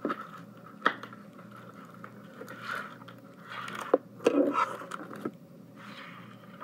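Cardboard packaging and flat parts sheets of a model coaster kit being handled and unpacked: rustling and scraping with a few sharp taps and clicks.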